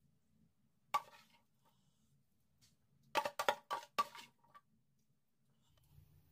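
Serving utensil clinking against a glass bowl and ceramic plate while salad is dished out: one clink about a second in, then a quick run of about five clinks between three and four seconds in.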